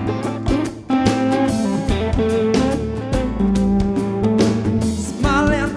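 Live band playing an instrumental passage: strummed acoustic guitar and electric guitar over bass and a steady drum beat. A singing voice comes in near the end.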